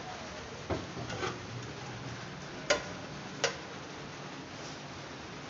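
A metal serving spoon clinking against an aluminium pot and a plate while rice is dished out: about four short clinks, the two loudest around three seconds in.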